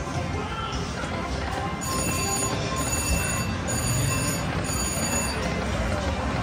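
Video slot machine spinning its reels, with about four high electronic ringing pulses from about two seconds in until past five seconds, over a steady casino background din.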